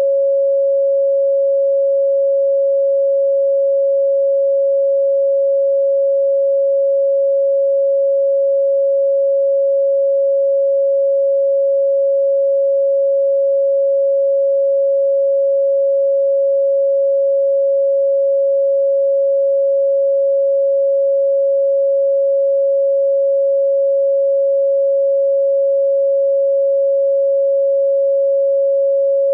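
Steady synthesized sine tone at about 552 Hz, held without a break at constant loudness, with a much fainter high-pitched tone near 4 kHz above it.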